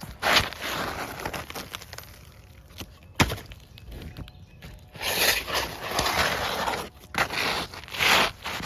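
Bursts of scraping and crunching handling noise, with one sharp knock about three seconds in.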